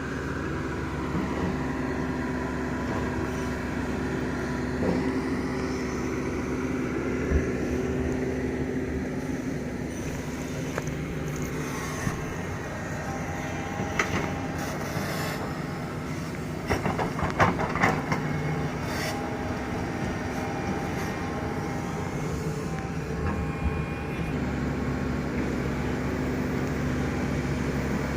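Doosan DX225LCA excavator's diesel engine running steadily, with a few sharp knocks, most of them in a quick cluster a little past the middle.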